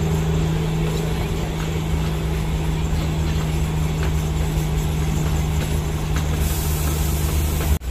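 Narrow-gauge train running along the line: a steady low engine drone over the constant rumble of the moving coaches. Near the end the sound cuts out for an instant and comes back as a heavier rumble.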